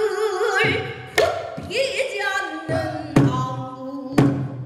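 A female pansori singer holds long, wavering notes with heavy vibrato, accompanied by a buk barrel drum. The drum is struck sharply three times.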